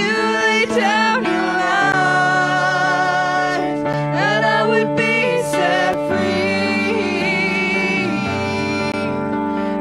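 Church worship team singing to an electronic keyboard, voices gliding over long held chords.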